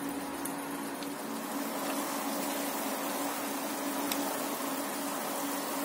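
Chicken legs in foil trays sizzling and bubbling in a hot oven, over a steady hum.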